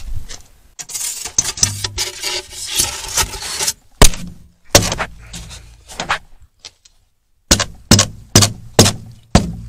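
Can of spray-foam insulation sputtering and hissing for about three seconds as foam is sprayed into the gaps, followed by a string of sharp knocks, five in quick succession near the end.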